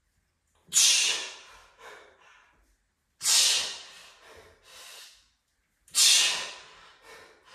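A man breathing out forcefully, three sharp hissing exhalations about two and a half seconds apart, each followed by a softer breath. Each exhalation comes with one rep of a single-arm kettlebell shoulder press under strain.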